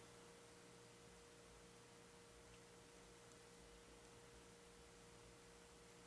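Near silence: faint room tone with a steady hum at one pitch.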